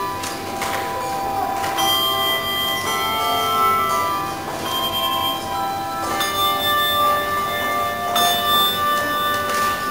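Handbell choir playing brass handbells: several bells ring together in chords, with new notes struck every second or two and each ringing on.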